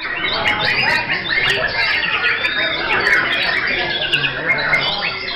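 Many caged white-rumped shamas (murai batu) singing at once, a dense chorus of overlapping whistles, chirps and trills with no break.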